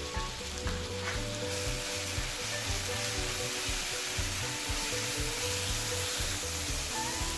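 Garlic and chili paste frying in hot oil in a non-stick pan, sizzling steadily while a wooden spatula stirs it. The sizzle grows brighter about a second and a half in.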